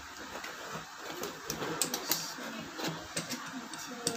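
Box cutter blade slicing through cardboard, an irregular run of short scratching clicks.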